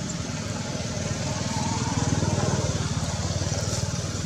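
An engine running with a rapid low throb, a little louder about halfway through.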